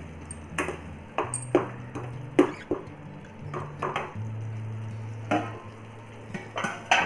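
Perforated steel spatula stirring and scraping a thick masala in a metal pan, with irregular clinks and scrapes of metal on the pan. A louder clank comes near the end.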